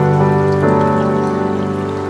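Soft instrumental background music with held notes that change every half second or so.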